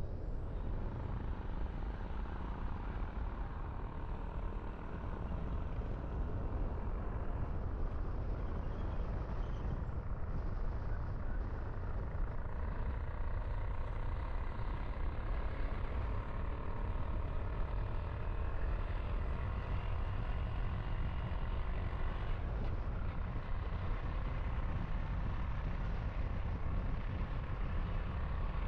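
A car driving: a steady low rumble of engine and road noise, with the engine's pitch drifting slightly up and down as the speed changes.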